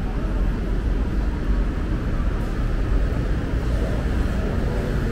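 Busy market ambience: a steady low rumble under a haze of crowd noise, with faint voices coming through near the end.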